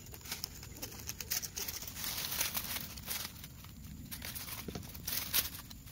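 Handling sounds of a Tokai chainsaw being worked on by hand, its engine off: scattered light clicks from the bar and chain, with dry bamboo leaves crackling and rustling underneath.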